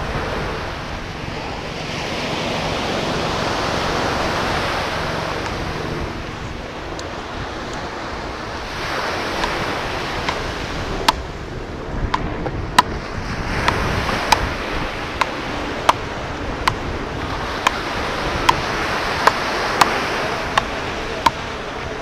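Ocean surf breaking on the beach, its rush swelling and fading every few seconds. From about halfway through, sharp clicks repeat evenly, roughly one every three-quarters of a second.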